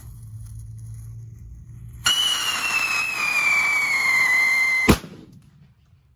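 Conde whistle bomb firecracker: a loud shrill whistle starts suddenly about two seconds in and slowly falls in pitch for nearly three seconds, then ends in a single sharp bang.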